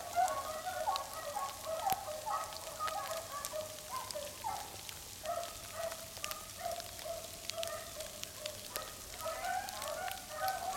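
A pack of beagles baying together on a rabbit track, many overlapping howling calls without a break. Scattered light ticks of frozen rain hitting a coat.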